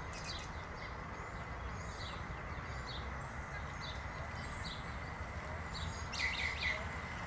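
Small birds chirping again and again over a steady outdoor hiss, with a louder run of chirps about six seconds in.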